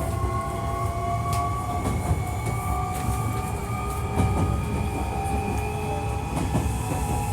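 Hankyu 1300 series electric train running, heard from on board: a whine of several tones rising slowly in pitch as the train gains speed, over a heavy low rumble from the wheels and rails with scattered clicks. This is the unit singled out as an odd-sounding car (異音車).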